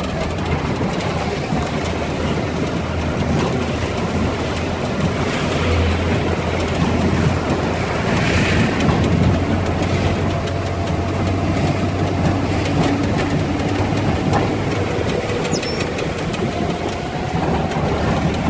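Steady engine and road noise from inside a moving vehicle's cab, with tyres on a rain-wet road and a low hum underneath.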